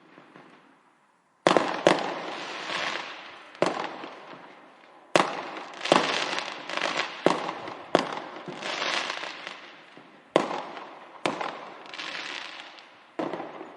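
Fireworks going off: about ten sharp bangs at uneven intervals, starting about a second and a half in, each followed by a noisy tail that dies away.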